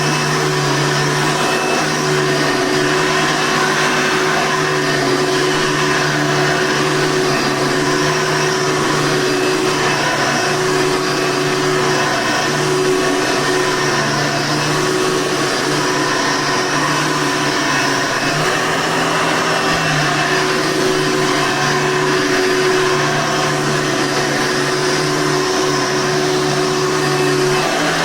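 Hoover Legacy 740 upright vacuum cleaner running steadily, its motor giving a low hum under a loud airy rush.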